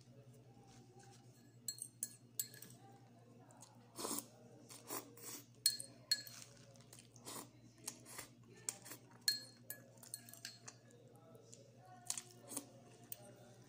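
Metal fork clinking and scraping against a ceramic bowl of instant noodles, with irregular sharp, ringing chinks about once a second and chewing in between.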